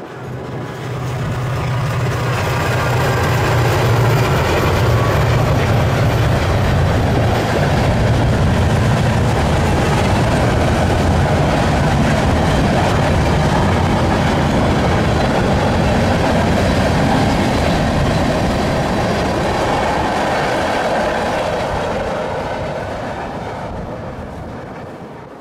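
Freight train passing close by, loud and steady, with a low drone in the first several seconds under the rumble and clatter of the cars. The sound fades near the end.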